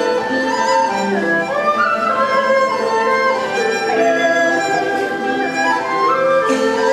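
Chinese qudi bamboo flute playing a traditional melody, with a small Chinese ensemble of lutes and strings accompanying.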